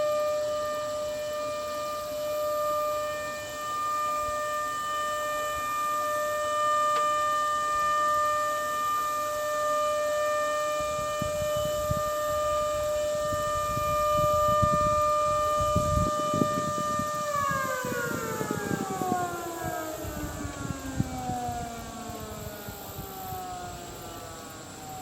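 Federal Signal Model 2 electromechanical tornado siren sounding a steady tone, then, after about seventeen seconds, winding down with its pitch falling steadily as the rotor slows.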